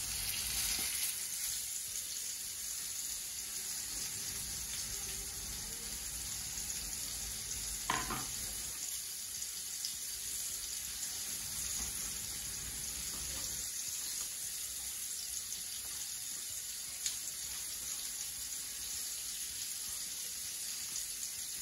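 Coconut-flour-coated crayfish deep-frying in a pot of hot oil: a steady sizzling hiss, with two brief knocks about eight and seventeen seconds in.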